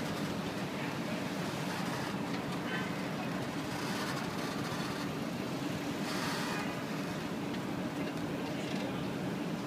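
Steady low rumble of vehicle engines and traffic, from a Jeep Wrangler crawling slowly over a log obstacle and the road beside it.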